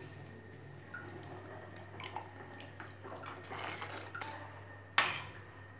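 Spoon stirring boiling dal in a pot: soft wet sloshing and dripping with small scattered clicks. A single sharp tap about five seconds in is the loudest sound.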